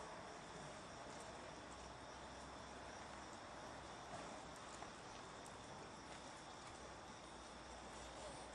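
Faint crickets chirping steadily under a soft hiss, with a few small ticks.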